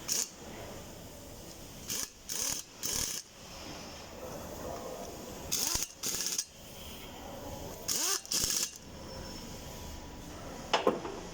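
Short bursts from a power tool during work on a geared winch's shaft bearing: about eight bursts, each under half a second and mostly in pairs, then a single sharp click near the end.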